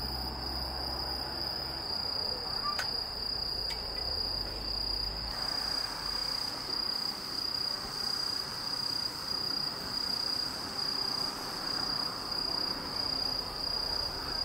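Crickets chirping in a steady high-pitched trill, over a faint hiss of other insects.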